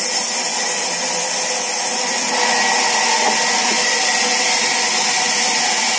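Sawmill saw machine running steadily, a loud continuous noise with a faint whine, changing slightly about two seconds in.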